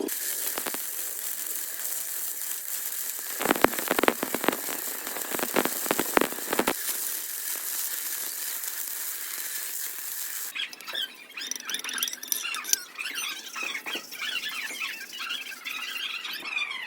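Stick-welding (SMAW) arc hissing steadily, with a spell of sharp crackles a few seconds in. After about ten seconds the hiss gives way to irregular high squeals and chirps.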